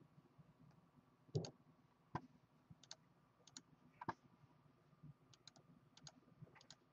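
Faint, irregular clicks from a laptop being worked by hand while a checklist is looked up, about a dozen in all, the loudest about a second and a half in.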